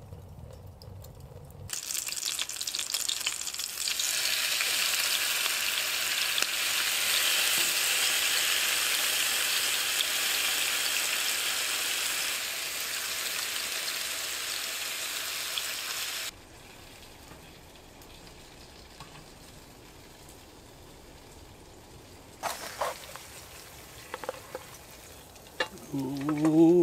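Bacon and sausages sizzling in a frying pan: a loud, even sizzle from about two seconds in that stops abruptly past the middle. After a quieter stretch come a few scrapes and knocks of a wooden spatula against the pan near the end.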